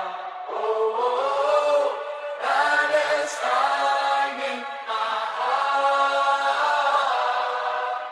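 Music: choir-like chanted vocals sung in long held notes, in phrases of one to three seconds with short breaks between them.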